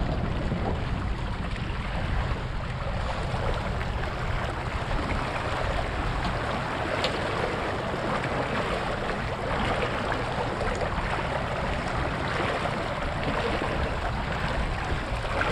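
Wind buffeting the microphone over the steady rush of water along the hull of a small sailboat under way.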